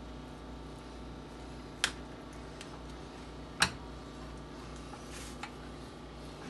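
Two sharp clicks of cookware being handled, the second louder, with a fainter tick later, over a steady low hum.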